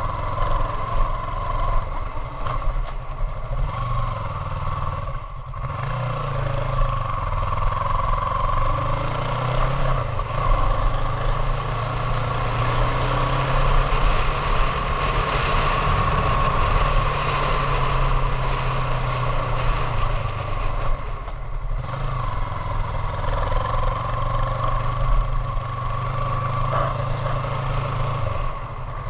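Motorcycle engine running under way along a lane, its note stepping up and down with the throttle, over a steady rush of wind noise. The engine eases off briefly twice, about five seconds in and again after about twenty seconds, then picks up.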